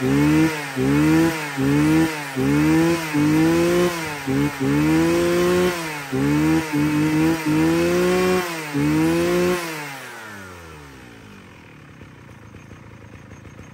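Mitsubishi 52 cc two-stroke brush cutter engine revved in quick repeated throttle blips, about two a second, each a rising then falling whine. About ten seconds in, the blipping stops and the pitch slides steadily down as the engine winds down and fades.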